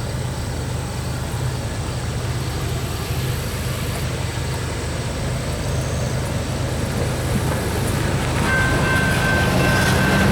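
Diesel-electric freight locomotives of a BNSF coal train approaching, a steady low rumble that grows slowly louder. About eight seconds in, a steady high-pitched tone joins the rumble.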